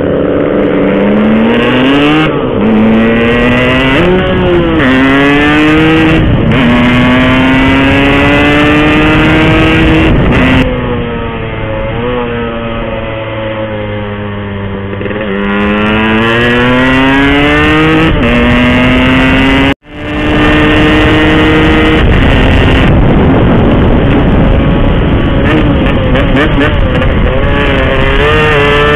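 Yamaha RX King two-stroke single-cylinder engine accelerating hard through the gears. Its pitch rises in each gear and drops back at each shift. About ten seconds in it backs off, the pitch sinking for a few seconds, then it pulls up through the gears again. There is a sudden momentary cut just before twenty seconds.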